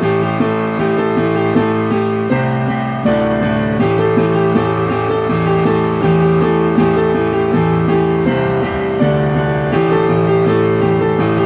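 A keyboard playing a steady run of sustained chords with repeated note attacks, the harmony shifting every second or two.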